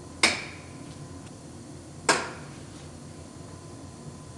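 Two sharp metal knocks about two seconds apart, each with a brief ring: clamps and tools striking a car's body panel as it is lined up and clamped.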